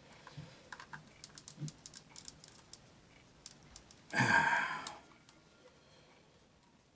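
Light, scattered plastic clicks and taps as statue parts are handled and snapped into place, with a short burst of breathy noise about four seconds in.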